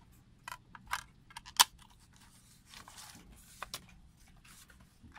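A DVD disc and its case being handled: several sharp clicks and taps, the loudest about a second and a half in, then a brief rustle and two light clicks as the case is closed.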